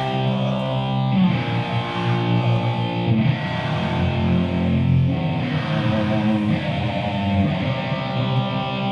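Rock band playing live in an instrumental passage between vocal lines: electric guitar chords held and changing about every two seconds.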